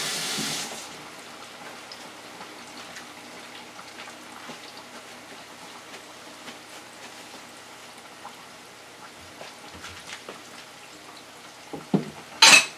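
Kitchen tap running as hands are washed, shut off about a second in. A faint steady background with small clicks follows, then a couple of knocks and a short loud clatter near the end.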